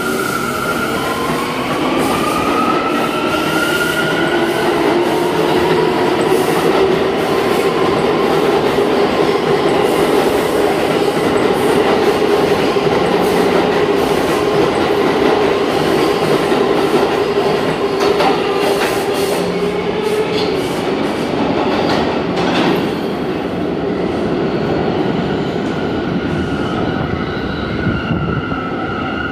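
Subway train pulling out of a station. Its electric motors whine, rising in pitch over the first few seconds as it gathers speed. Then comes a steady rumble with clicking and clatter of the wheels over the rails, easing off near the end as the last car goes into the tunnel.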